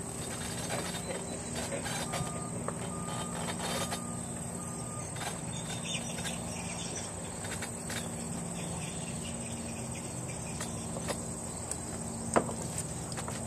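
Steady low drone of a distant engine, with a vehicle's reversing beeper sounding a few short beeps about two seconds in. A single sharp click near the end.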